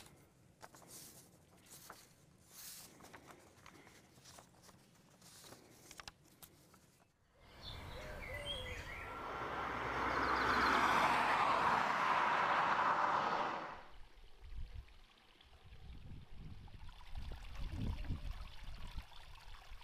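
Outdoor ambience with birds chirping. About halfway through, a loud rushing noise builds and then fades over roughly six seconds, followed by a low rumble.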